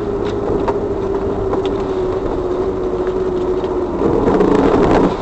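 Vehicle running on the road: a steady rumble with a held hum, growing louder and rougher about four seconds in.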